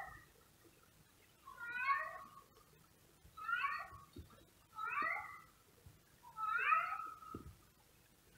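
Male cat outdoors meowing repeatedly: four long, drawn-out meows about a second and a half apart, just after the tail of another.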